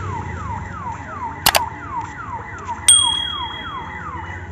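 Railway level-crossing warning siren, a falling electronic whoop repeating about three times a second. About one and a half seconds in come two quick knocks, and just before three seconds a sharp metallic clang, the loudest sound, rings on for about a second.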